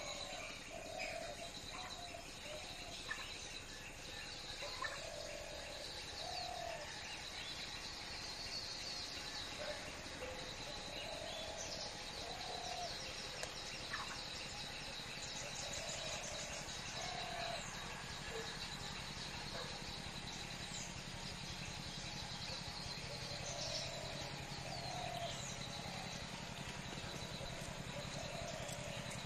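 Birds calling: scattered high chirps and trills over a steady high-pitched tone, with a short low call repeated every second or two.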